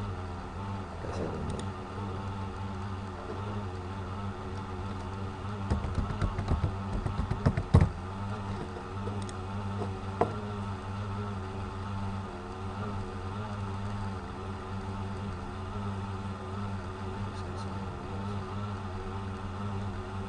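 Steady low mechanical hum, with a cluster of knocks and clicks about six to eight seconds in and a single click a little later.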